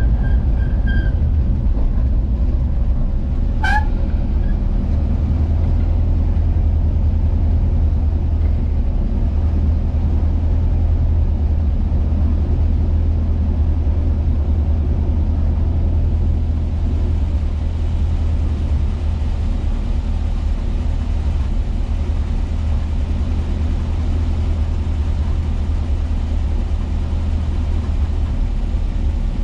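Volkswagen Kombi engine running steadily while driving, a deep, even low rumble. A brief high rising chirp sounds once about four seconds in.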